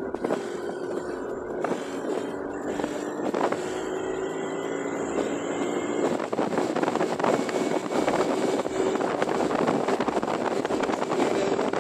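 Scooter engine running under way, its steady note rising gently as it picks up speed, with wind rushing over the microphone that grows louder about halfway through.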